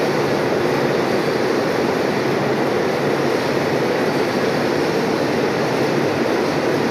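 Old furnace running with a steady, even rushing noise.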